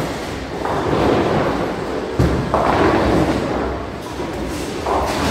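Bowling ball rolling down a wooden lane and crashing into the pins about two seconds in, followed by the pins clattering. Other lanes' balls and pins keep up a steady din.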